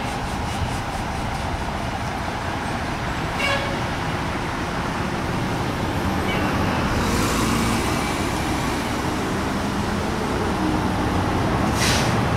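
A fire engine's diesel engine runs as the truck backs slowly into its station. Two short toots come near the start and about three and a half seconds in, and bursts of hiss come around seven seconds in and again near the end.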